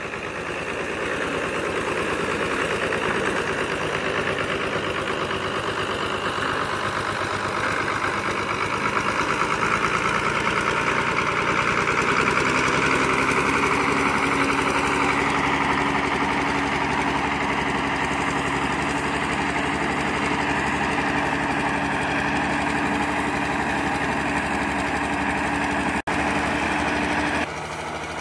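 Ursus 1201 tractor's six-cylinder diesel engine running under load as its front loader pushes hay, fading in at first and growing louder toward the middle. A steady whining tone sets in about halfway. Near the end the sound drops out for an instant, then steps down quieter.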